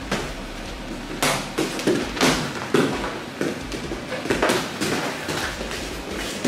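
Boxing gloves striking gloves, arms and body during sparring: a run of irregular sharp thuds, several a second at times.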